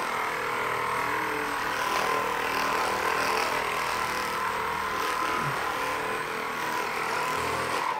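Theragun percussive massage gun running steadily against the glutes and the backs of the thighs, a constant whine that stops right at the end.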